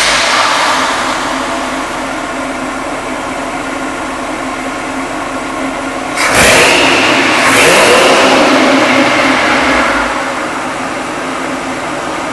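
V8 engine in a 1953 Chevrolet 3100 pickup idling just after a start, settling down over the first couple of seconds. About six seconds in it is revved, then revved again a second later and held higher for a couple of seconds. It drops back to a steady idle near the end.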